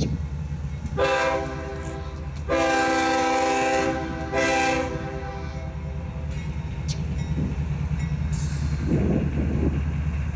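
CSX freight diesel locomotive's air horn sounding three blasts (short, long, short) over the steady low rumble of the locomotive diesel engines as the train pulls out.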